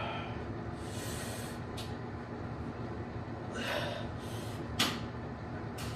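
Heavy breathing of a person straining through dumbbell curls: two forceful, hissing exhales, about a second in and again after three and a half seconds, with one sharp click just before five seconds. A steady low hum runs underneath.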